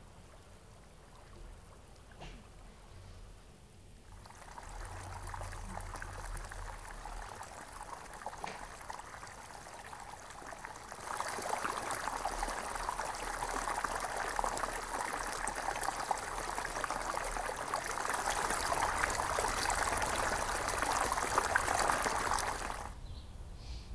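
Water rushing along a narrow stone channel, a steady hiss of flowing water. It comes in about four seconds in, grows louder about eleven seconds in, and cuts off suddenly near the end.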